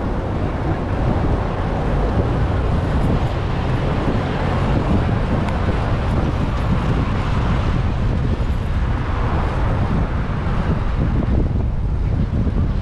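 Wind noise on the microphone of a rider's camera while cycling, over steady city traffic noise.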